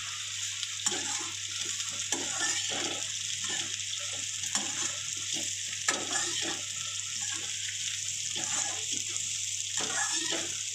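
Sliced bitter gourd with onion and green chillies sizzling in hot oil in a kadhai, stirred with a perforated spatula that scrapes the pan in irregular strokes about once a second. The gourd has just gone into the oil and is being fried before the spices go in.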